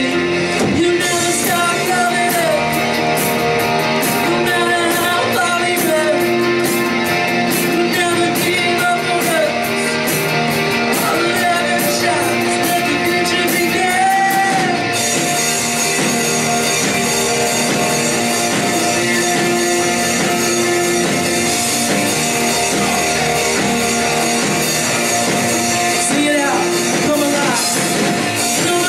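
Contemporary worship rock song: a singer over a full band, with cymbals ticking through the first half.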